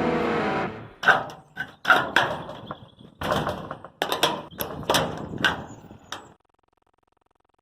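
Background music fading out, then about a dozen irregular knocks and bangs over five seconds, several with a short ring, ending abruptly.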